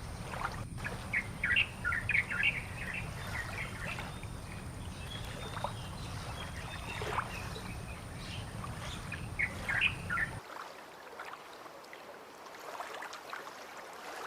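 Small birds chirping in quick clusters of short calls over a steady low rumble. The rumble cuts off abruptly about ten seconds in, and faint chirps go on after it.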